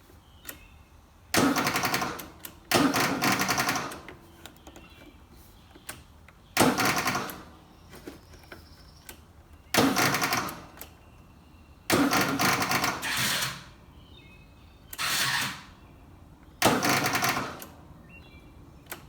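Toro TimeCutter riding mower's starter cranking the engine in seven short bursts of about a second each, with pauses between, and the engine not catching. The mower is hard to start: it starts eventually but only after a long time.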